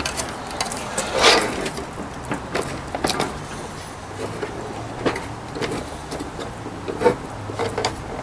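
Plastic clicks and knocks as the folding stand flaps and wire props on the back of a briefcase solar charger are swung open and set, a few sharp clicks about two seconds apart with a rustle of handling before them.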